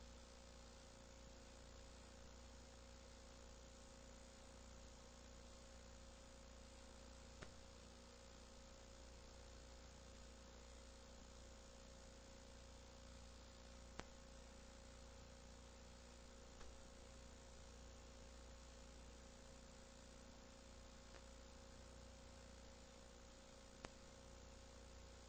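Near silence: a faint steady electrical hum and hiss in the recording, with a few faint clicks.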